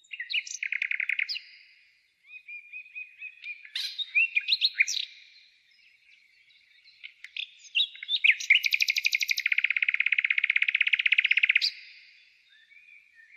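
Songbird singing: quick chirps and whistles, with a short trill near the start and a long rapid trill lasting about three seconds in the second half.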